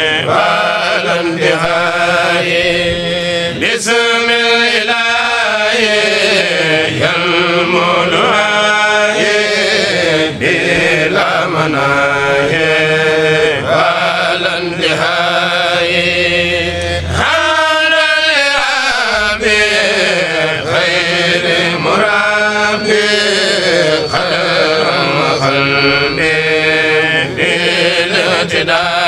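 Kourel chanting: voices singing an Arabic devotional poem (a khassida) in long, drawn-out melodic lines that glide up and down.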